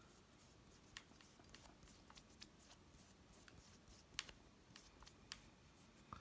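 Near silence with faint handling sounds: scattered small clicks and light rubbing as oil is worked onto the pistol's metal parts.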